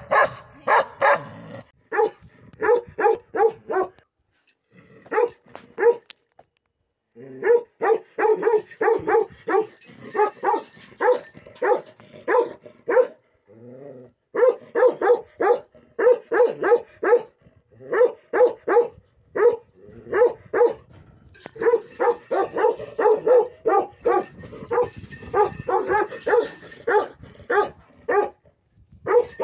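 Dogs barking repeatedly in quick runs of short barks, a few per second, with brief pauses between runs.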